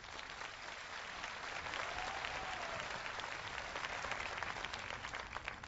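Large crowd applauding, dense and steady, then dying away near the end.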